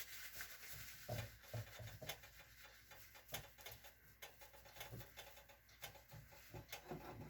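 Faint scattered light clicks and soft rubbing of kitchen paper towel wiping the rim of a plate.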